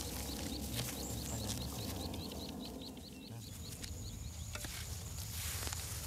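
Outdoor field ambience: a repeated short high chirp, about three a second, stops a little past halfway. A steady high whine comes in a little past halfway, over a low rumble, with a few faint rustles of straw stubble.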